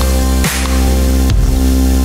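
Electronic background music with heavy held bass notes and a beat that breaks about once a second.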